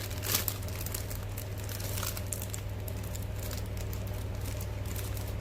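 Plastic packaging crinkling in short, scattered crackles as a squishy toy is handled, over a steady low electrical hum.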